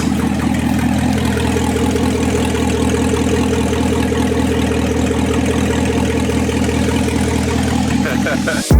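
Corvette V8 idling steadily on open headers, the exhaust and catalytic converters removed from the headers back, giving a loud, raw idle. A sharp burst of sound cuts it off near the end.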